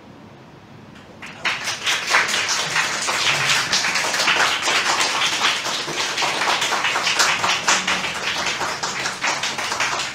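Audience applauding, breaking out about a second in and going on steadily.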